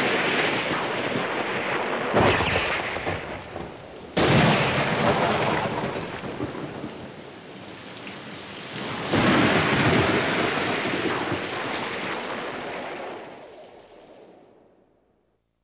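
Thunderstorm with heavy rain. Thunderclaps break suddenly at the start, about two seconds in, about four seconds in and again near nine seconds, each one rumbling away. The storm fades out over the last couple of seconds.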